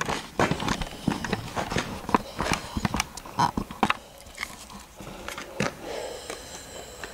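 Irregular crunching clicks and knocks, several a second, varying in loudness.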